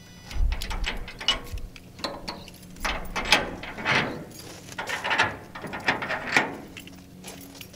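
Steel locking bars and cam handles of a shipping container's cargo doors being worked by hand: a run of metallic clanks, rattles and scrapes with a dull thud about half a second in. It has several louder clanks along the way and stops about a second before the end.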